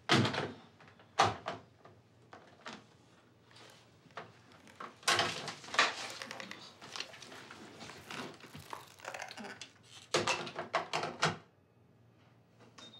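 A plastic wall-phone handset clacks into its cradle right at the start. Scattered knocks, thumps and rustling of someone moving about follow, in clusters about five and ten seconds in.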